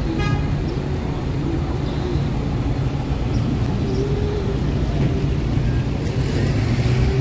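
City street traffic: a steady, unbroken low hum of car engines.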